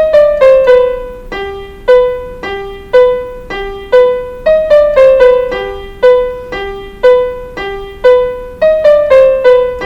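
Electronic keyboard playing a simple melody one note at a time, about two notes a second. Each note is struck and fades, moving mostly among three neighbouring pitches.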